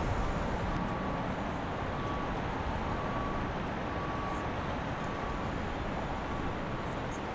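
Steady rumble of boat engines on the river, with faint short high tones recurring about once a second.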